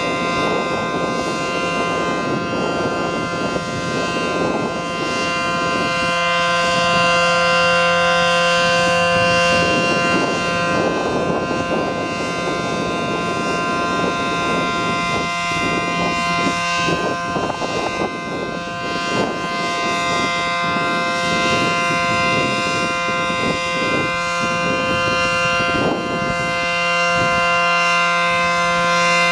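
ACA Allertor 125 dual-tone (9/12-port) rotating siren sounding a steady Alert signal: a sustained two-note chord held at constant pitch, its loudness swelling and easing gently as the rotating horn sweeps.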